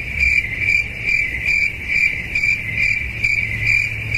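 Cricket chirping sound effect: a steady, evenly pulsed high chirp over a low hum, cut in and out abruptly as a comic 'crickets' awkward-silence gag.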